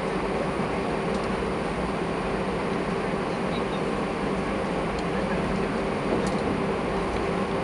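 Steady cabin noise inside an Airbus A320 taxiing: the engines at low taxi power and the cabin air ventilation make an even rumble and hum, with a few faint ticks.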